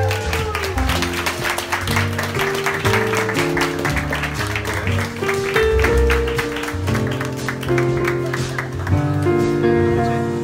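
Instrumental background music with held notes over a bass line and a busy percussive texture, which gives way to smoother sustained notes about nine seconds in.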